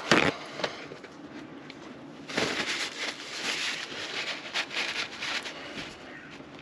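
Two sharp knocks, then about three seconds of rapid rustling and rubbing as hands work in the engine bay of a diesel car during a fuel filter change.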